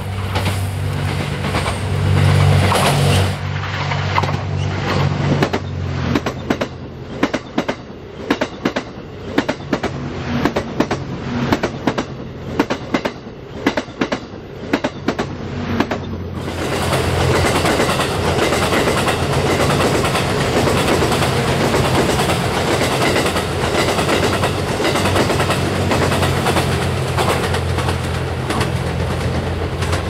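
Series 87 Twilight Express Mizukaze diesel train passing close by, with a low steady hum from its diesel engines and a rapid run of wheel clacks over the rail joints. The sound changes abruptly about three seconds in and again about halfway through, then settles into a dense steady rumble of the passing cars.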